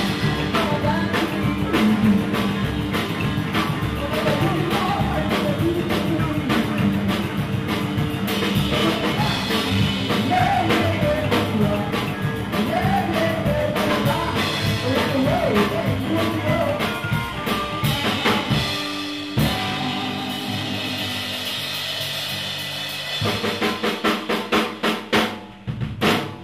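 Live rockabilly band playing: upright double bass, hollow-body electric guitar and drum kit under a woman's singing. In the last few seconds the song closes on a run of loud drum hits and stops.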